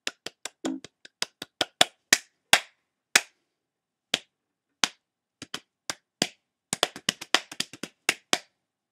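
One person clapping their hands in an uneven rhythm: quick claps over the first three seconds, then single claps with pauses of up to a second, then a fast flurry near the end before they stop.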